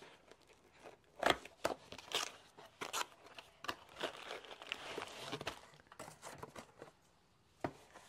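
A cardboard diamond-art kit box being opened and its contents handled: scattered sharp clicks and taps of the card, with a longer stretch of crinkly rustling of packaging through the middle.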